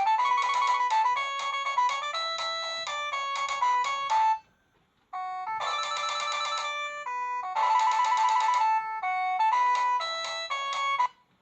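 Polyphonic ringtone melody from a Corise KS728 mobile phone, a quick electronic tune of short stacked notes. It stops about four seconds in, and after a brief silence a melody starts again and runs until it cuts off shortly before the end.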